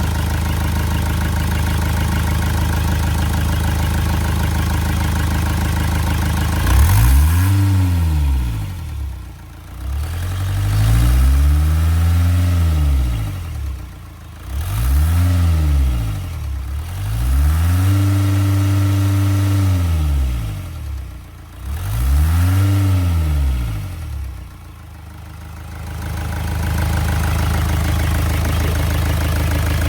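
Hyundai Santa Fe 2.2 diesel engine idling, then revved about five times, each rev rising and falling back, before it settles to idle again. Under throttle a whistle shows up around the turbo: exhaust escaping through a cracked EGR flex pipe between the exhaust manifold and the EGR cooler.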